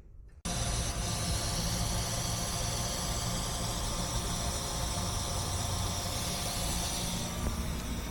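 A steady mechanical noise with a strong hiss starts abruptly about half a second in and runs on without change.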